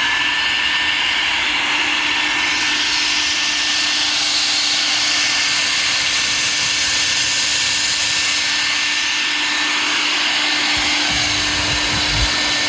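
One motor of an Edco dual-motor concrete dust collector vacuum running steadily at full speed: a loud, even rush of air with a constant high whine over a lower hum.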